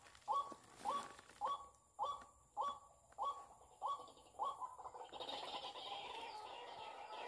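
White-breasted waterhen calls, a short rising croak repeated about twice a second, turning about five seconds in into a dense, continuous jumble of calls.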